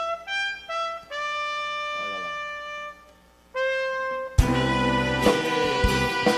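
Solo slide trombone playing a slow line of high held notes, then about four seconds in a full band with drums comes in under it.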